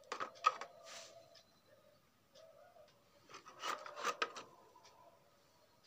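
Hands handling a plastic packaging tray holding a beard-trimmer kit: rubbing and sharp clicks in two clusters, one in the first second and another around four seconds in.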